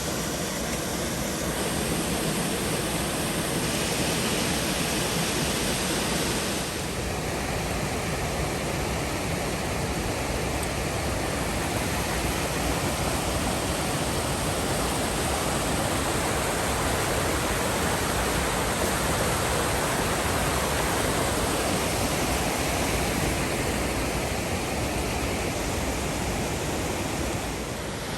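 Waterfall rushing steadily, a dense, even roar of falling water.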